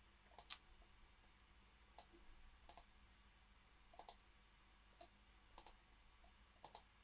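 Faint computer mouse clicks, mostly in quick press-and-release pairs, about once a second.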